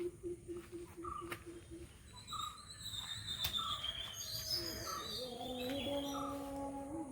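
Birds calling: a short chirp repeated about every half second, with higher whistled notes through the middle. A fast low trill sounds at the start and stops about two seconds in, and a long, low, held call comes in near the end.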